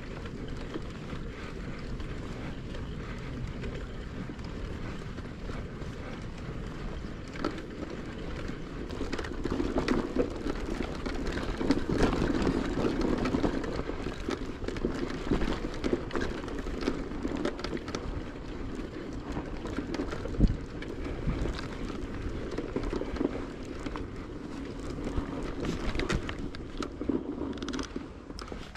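Bicycle being ridden, heard from a camera on the bike: a steady rumble of tyres and wind on the microphone, with scattered clicks and rattles from the bike over bumps and one sharper knock about two thirds of the way in.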